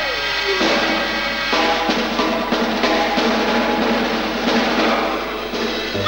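Cartoon soundtrack music with a drum kit, snare and bass drum hits under stacked sustained notes. A gliding note slides downward in the first half second.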